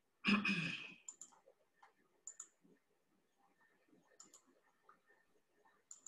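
Computer mouse double-clicks, four pairs spread a second or two apart, picked up by a laptop or webcam microphone as the slideshow is being started. A brief louder rustle comes about a third of a second in.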